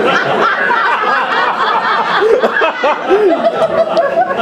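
Audience laughing, many voices at once, loud and continuous.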